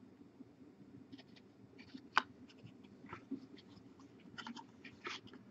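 Trading cards being slid through a stack by hand: faint scrapes and light clicks of card stock, with one sharper click about two seconds in.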